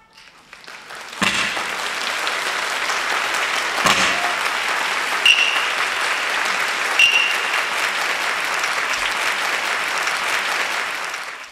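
Theatre audience applauding steadily. Two sharp knocks come through it about a second in and near four seconds, and two brief high-pitched calls rise above it later, before the applause fades at the very end.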